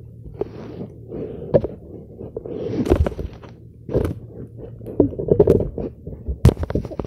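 Handling noise on a phone's microphone: fabric rubbing and scraping over it, with irregular knocks and bumps as the phone is moved about.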